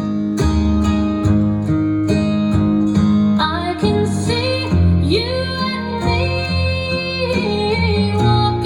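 Music: a song with acoustic guitar accompaniment at a steady beat, and a singing voice coming in about three and a half seconds in.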